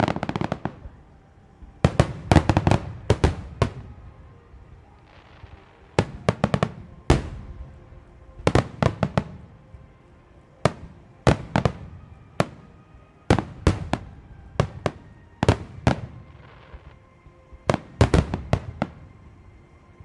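Starmine fireworks barrage: aerial shells bursting in rapid volleys of sharp bangs, a cluster every second or two, with short echoing tails.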